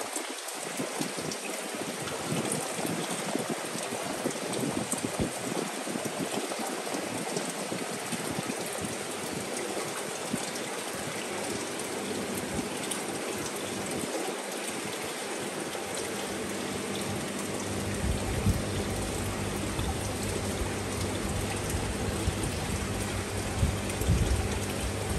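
Steady hiss of falling or running water. About 18 seconds in, a low steady hum joins it, and a few sharper peaks stand out near the end.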